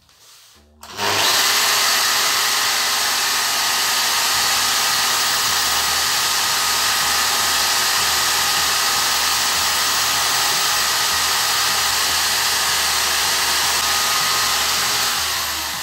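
Bosch GWS 9-125 S angle grinder starts about a second in and runs steadily at speed with a faint whine, a small grinding stone in a chuck on its spindle grinding rust off a steel spanner. It eases off near the end.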